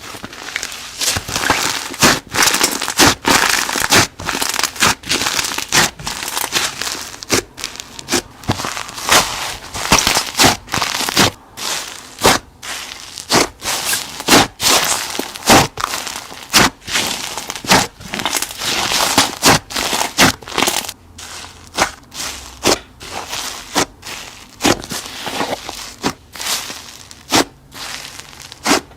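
Slime being squeezed and pressed by hand, with dense irregular crackling and popping.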